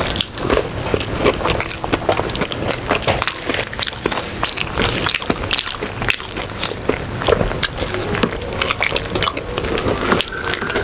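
Close-up wet eating sounds: mouthfuls of khichuri being chewed, with irregular lip smacks and soft clicks.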